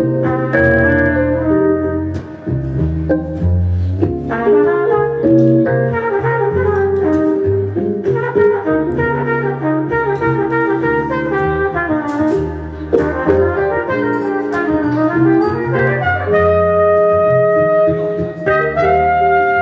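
Relaxed jazz duo: a flugelhorn plays a melody of long held notes with a warm tone over a plucked upright double bass.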